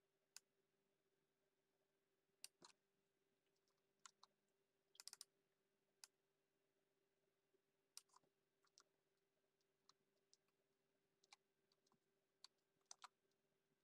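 Faint, irregular computer keyboard keystrokes and mouse clicks, single taps and a quick run of several about five seconds in, over a low steady hum.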